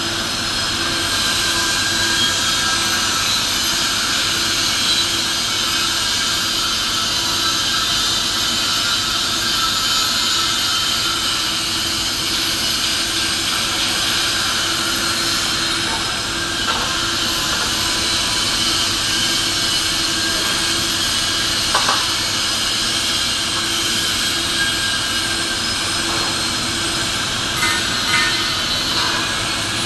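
Steady industrial workshop machinery noise: a continuous loud hiss over a low hum, with a few faint clinks in the second half.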